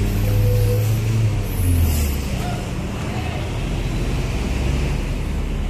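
Large diesel cargo truck's engine running with a steady low rumble, with a short hiss about two seconds in.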